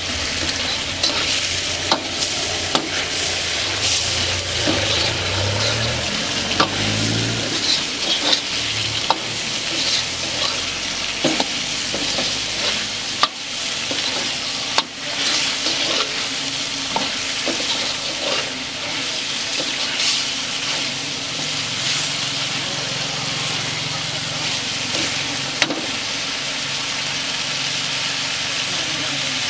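Chicken frying in a large wok, sizzling steadily, while a metal ladle stirs and scrapes it. The ladle strikes the pan often, giving sharp clinks at an uneven pace.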